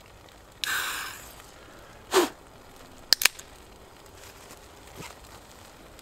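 Beer can being opened: a sharp hiss of escaping gas under a second in, fading over about a second. A short sharp sound follows about two seconds in, then two quick clicks a second later.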